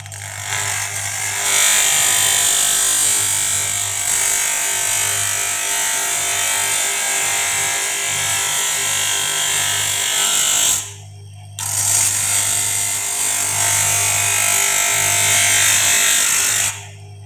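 Small electric lens-edging motor with the edge of a thick −7 plastic lens held against its spinning wheel: a loud, steady high hiss over a low motor hum as the thick lens edge is cut down thin. The hiss drops out briefly twice, about 11 seconds in and near the end, when the lens comes off the wheel.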